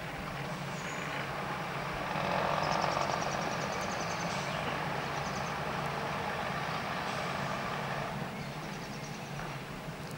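Class 105 diesel multiple unit's diesel engines running with a low steady drone, swelling into a louder rushing noise about two seconds in; a faint, fast high-pitched chatter comes and goes twice.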